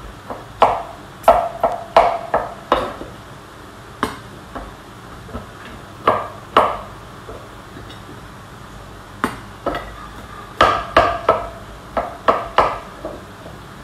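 Kitchen knife chopping canned whole peeled tomatoes on a cutting board. Sharp knocks come in irregular runs of a few quick strokes, with short pauses between.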